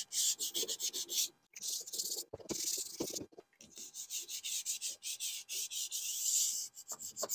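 Hand wet-sanding a primed window trim molding with 400-grit paper: quick back-and-forth strokes in short runs with brief pauses between them.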